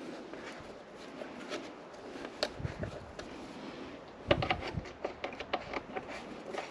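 Light clicks and knocks of parts and tools being handled while fitting a motorcycle windscreen around the headlight, with a quick run of clicks about four seconds in.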